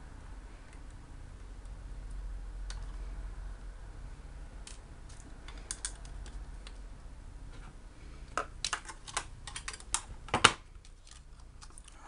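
Small clicks and taps of hands handling a laptop drive, its caddy and screws, in a quick run in the second half, the loudest about ten and a half seconds in.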